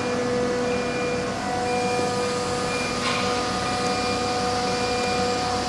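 1325 ATC CNC router running: a steady machine whine with several held tones, and a higher tone that keeps starting and stopping.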